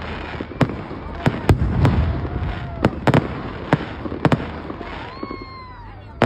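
Fireworks show: about ten sharp, loud bangs of bursting aerial shells over a steady low rumble of further bursts. The bangs stop about two-thirds of the way through, leaving the rumble fading.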